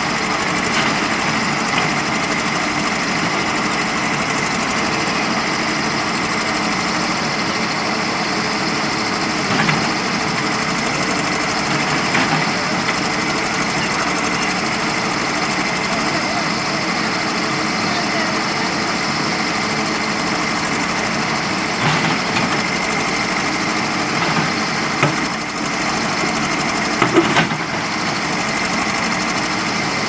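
Diesel engine of a JCB 3DX backhoe loader running steadily, with a few short knocks scattered through, the loudest pair near the end.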